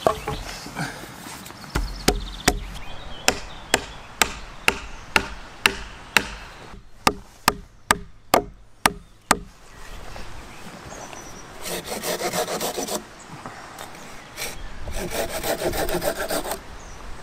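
A run of sharp wooden knocks, about two a second, that stops about nine seconds in. Then a hand saw cuts into wooden pegs in two spells of quick, even back-and-forth strokes.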